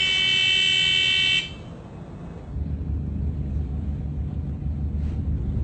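Ship's engine order telegraph buzzer sounding steadily for about a second and a half after the 'dead slow ahead' order, then cutting off. From about two and a half seconds in, the low rumble of the ship's engine picks up.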